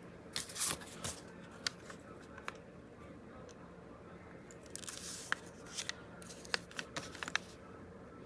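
Card and paper pages of a handmade tag journal being handled: brief rustles and scattered light taps and clicks as the pages are opened and pressed flat on the desk, busiest about five to seven seconds in.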